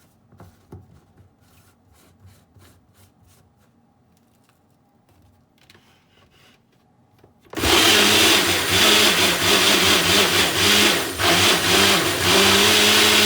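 Countertop blender switched on a little past halfway, running loud and steady with a slightly wavering motor hum as it blends pancake batter of flour, egg, milk and yogurt. Before it starts there are only a few faint clicks.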